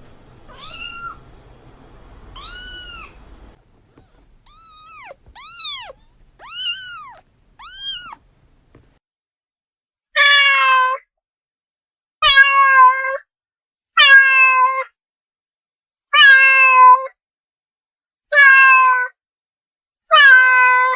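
Domestic cats meowing, in several separate recordings: two meows over a faint hiss, then four short meows that rise and fall in pitch, then from about ten seconds in six louder, longer meows about two seconds apart.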